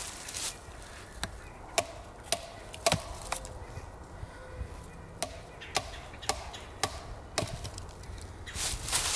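A wooden baton striking the butt plate of a fixed-blade survival knife, hammering the blade down into a wooden post. The knocks come about two a second, with a pause of a couple of seconds in the middle.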